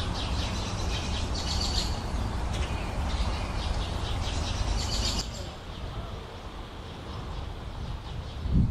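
Small birds chirping repeatedly over a steady low rumble of wind on the microphone. The chirping stops about five seconds in, leaving the wind rumble, and a dull thump comes just before the end.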